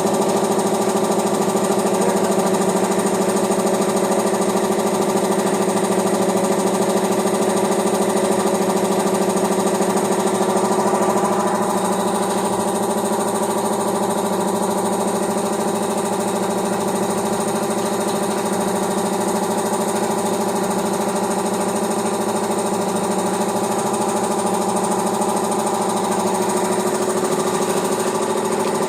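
Piston air compressor running steadily with a fast, even pulsing; it gets slightly quieter about eleven seconds in.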